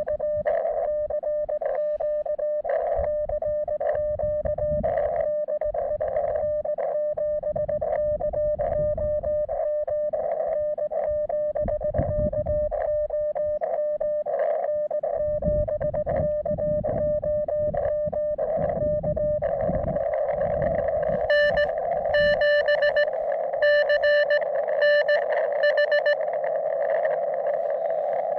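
Morse code (CW) from a portable ham radio: one mid-pitched tone keyed on and off over a hiss of static. About two-thirds in, the static grows and a louder, sharper run of keying comes through.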